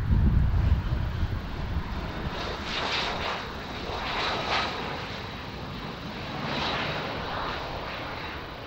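Bombardier CRJ-701ER's two rear-mounted General Electric CF34 turbofan engines running as the jet rolls out along the runway just after touchdown. A low rumble at the start dies away over the first two seconds, then a higher-pitched engine noise rises and falls a few times before easing off near the end.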